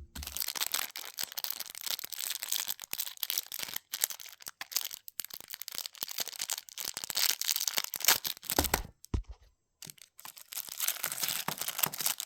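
Plastic packaging being crinkled and torn open by hand, in irregular spells, with a couple of low bumps and a short pause about nine seconds in.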